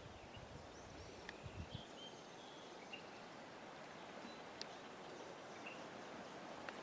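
Faint outdoor ambience: a steady hiss with scattered short, high bird chirps, after a sharp click at the very start.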